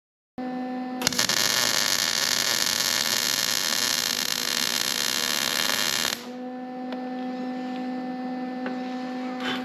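Welding arc running a bead for about five seconds. It starts with a few sharp crackles about a second in and cuts off abruptly. A steady hum sounds before and after it.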